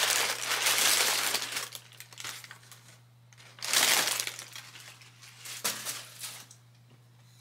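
Wrapping tissue paper rustling and crinkling as it is handled, in three spells: a long one at first, another about four seconds in, and a short one near six seconds.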